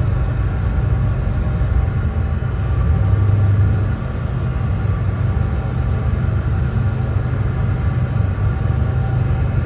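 Brown noise: a steady, deep, rumbling hiss weighted toward the low end, swelling slightly about three seconds in.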